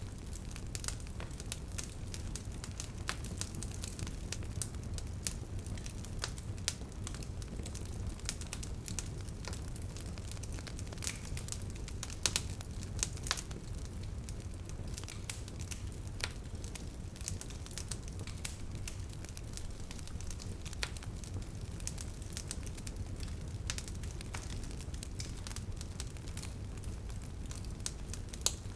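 Wood fire crackling: irregular sharp pops and snaps over a steady low rumble. A few louder pops come about halfway through and again near the end.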